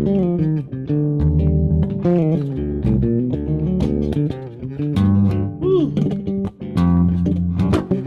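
Solo electric bass guitar played in fast melodic runs with sharp, percussive note attacks, and a note bent and wavering about six seconds in.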